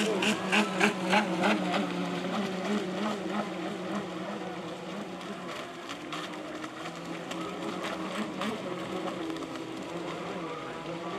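Several Club 500 model racing boats running at speed, their small electric motors whining in steady overlapping tones that pulse in the first second or two and then settle.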